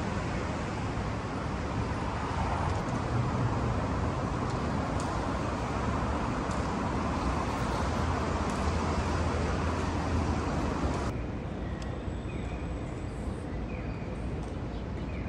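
Steady city traffic noise with a low rumble. About eleven seconds in it drops suddenly to a quieter hum with a few faint, short high tones.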